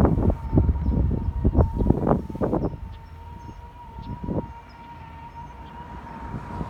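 Wind buffeting the microphone in gusts, which ease off about three seconds in. A single steady high-pitched tone holds at one pitch throughout.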